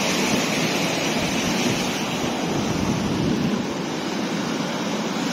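Heavy rain and a raging, flood-swollen river together making a steady, even rushing noise with no breaks.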